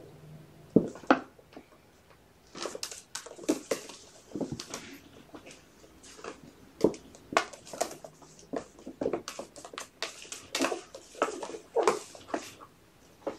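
Kittens' claws scrabbling and scratching on a plastic slide: a quick, irregular run of short scratches, pats and light knocks as they climb and slide down.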